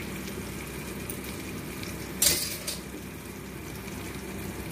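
One short clink of a kitchen utensil against a dish about two seconds in, over a steady faint hiss.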